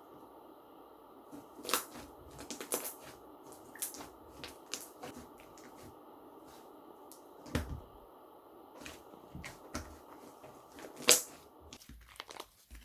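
Slime being squished, poked and stretched by hand: scattered sticky clicks and crackles with a few sharper snaps and pops, the loudest about eleven seconds in.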